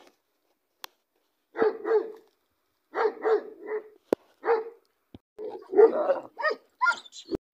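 Pakistani bully dog barking in short runs of two to four barks. The barking starts about a second and a half in and comes faster near the end, with a sharp click about four seconds in.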